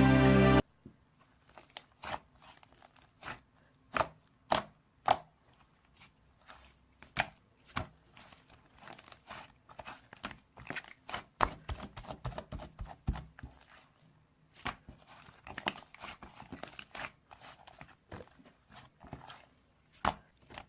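Slime being squeezed and poked by hand, making irregular sharp pops and crackles, some sparse and some in quick clusters. Music stops about half a second in.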